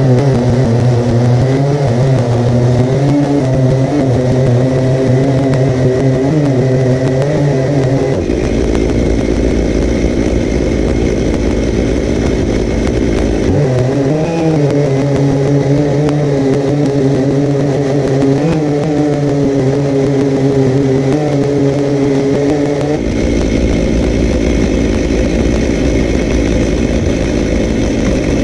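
Two Stihl MS880 two-stroke chainsaws running at full throttle under load, ripping lengthwise through a sycamore log on a double-ended chainsaw mill. The engine note holds steady, turning rougher for a few seconds around a third of the way in and again near the end.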